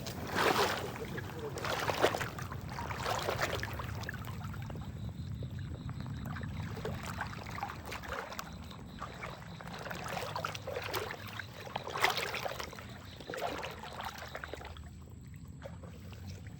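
River water splashing and sloshing in irregular bursts, the biggest about half a second in, around two seconds in, and around twelve seconds in, over a steady low rumble.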